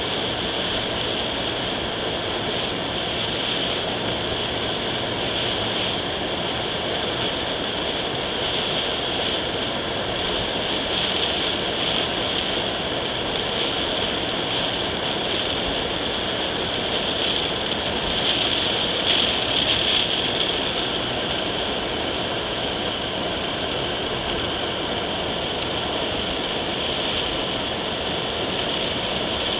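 Heavy rain on a moving car, heard from inside the cabin, mixed with the tyres running on the wet road: a steady rushing hiss that grows louder for a couple of seconds about two-thirds of the way in.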